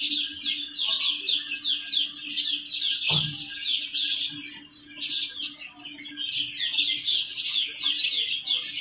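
Ducklings peeping nonstop, many quick high falling peeps overlapping, with a short lull a little past halfway. A faint steady hum runs underneath, and a dull thump sounds about three seconds in.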